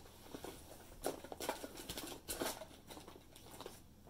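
Cotton flour-sack fabric being cut with scissors and handled: an irregular run of short, crisp snips and rustles that dies away near the end.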